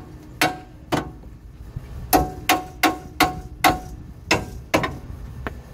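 Hammer blows on steel at the upper ball joint of a Ford F-150's front suspension, about ten strikes in quick succession, each with a short metallic ring, to drive the ball joint stud loose from its taper with the nut left on its last threads.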